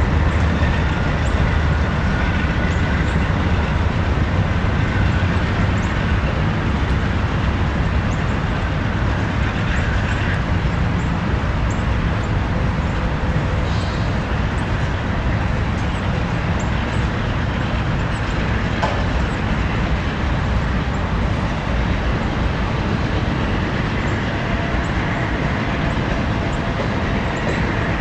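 Freight train of covered hopper cars rolling past: a steady rumble of steel wheels on the rails.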